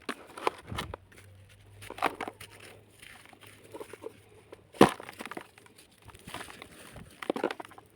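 Dried sand-cement crumbling and crunching in irregular crackles and clicks, with one sharp crack just before five seconds in.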